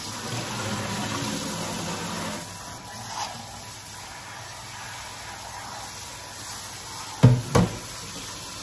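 Kitchen tap running steadily as halved jalapeño peppers are rinsed under it. Two knocks come close together near the end.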